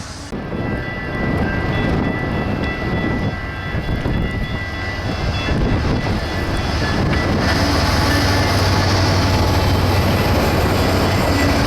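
A long freight train with diesel locomotives passing close by: a loud, rumbling train sound that builds, with a steady engine drone coming up strongly about two-thirds of the way through.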